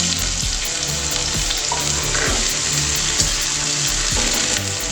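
Chopped onion frying with garlic and green chillies in hot mustard oil in a kadai: a steady sizzle, with scattered knocks of the spatula as it is stirred.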